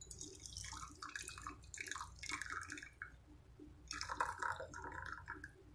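Hot turmeric tea poured through a strainer into a glass, splashing and dripping in two stretches with a short pause about three seconds in.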